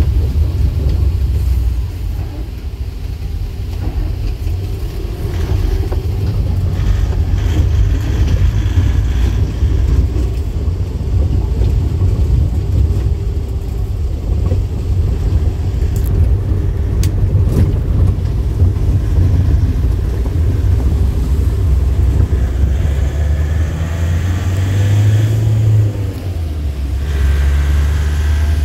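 Vehicle engine and tyre noise heard from inside the cabin while driving on a wet road: a steady low rumble. Near the end the engine note rises briefly, then drops.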